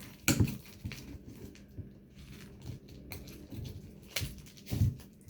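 Hands handling and opening a small package: a few short knocks and light rustles of packaging.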